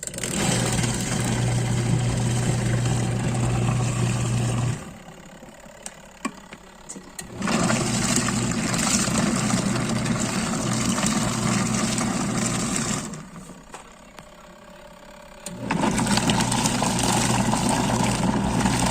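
Union UGWM20 mini washing machine agitating a small load of socks in water, on a 3-minute wash setting. The motor hums and the water churns in three runs of several seconds each, with a pause of two or three seconds between them, the stop-and-reverse of a washer's wash action.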